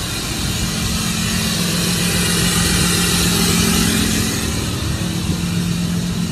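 Ford 6.7L Power Stroke V8 turbodiesel idling steadily, heard at its twin exhaust tips, with a breathy hiss that swells a little around the middle.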